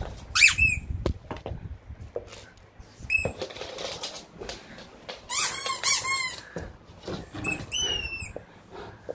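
Squeaky dog toy squeaking in short bursts as a Bichon Frise plays with it: a pair of squeaks near the start, one about three seconds in, a quick run of squeaks at about five to six seconds, and a few more near the end, with soft rustling between.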